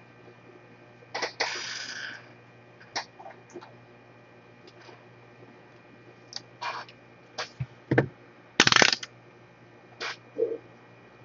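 Small hard objects handled on a repair bench: scattered clicks and taps, with a short rattling clatter about nine seconds in, over a faint steady mains hum.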